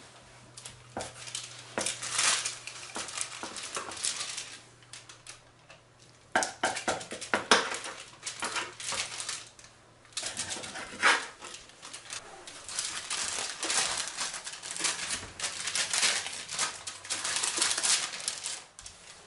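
Kitchen knife sawing lengthwise through a rolled, filled yeast-dough log on a parchment-lined metal baking tray: irregular clusters of scraping strokes with crinkling of the baking paper, and more paper rustling as the cut dough is handled near the end.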